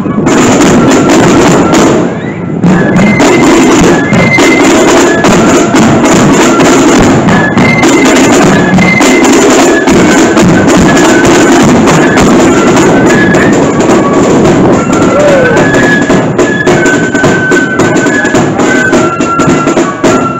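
Marching flute band playing a tune: flutes carry the melody in steady, stepping high notes over rapid snare and bass drum beats, with a short break about two seconds in.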